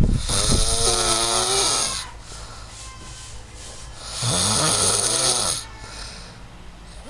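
A person snoring loudly: two long, rattling snores about four seconds apart, with quieter breathing between them.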